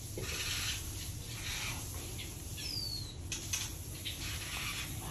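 Aviary birds giving short high chirps and one falling whistle about two and a half seconds in, with bursts of wing flutter and rustling as they move around.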